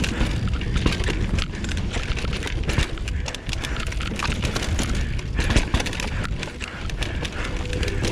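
Mountain bike riding down a dirt singletrack: a steady rumble from the tyres and ground, with many quick irregular knocks and rattles from the bike over the rough trail.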